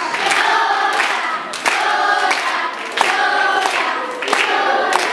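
A song sung by a group of voices together, with held notes over a steady beat of about three beats every two seconds.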